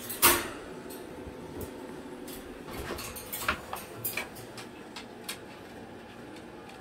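Cockatoo knocking about at a toy teepee: one sharp knock about a quarter second in, then scattered lighter taps and clicks over a few seconds.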